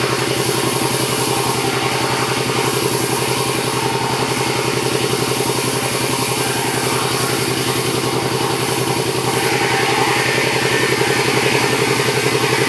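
Sawmill engine running steadily. A brighter hissing noise joins about nine and a half seconds in and the sound gets a little louder.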